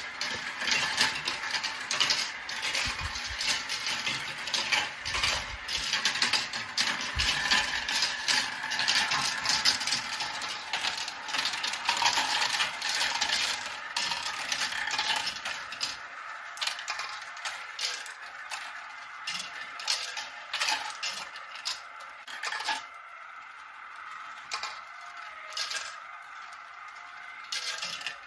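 Marbles rolling and clattering through a marble run: a dense stream of small hard clicks and rattles that thins out about sixteen seconds in.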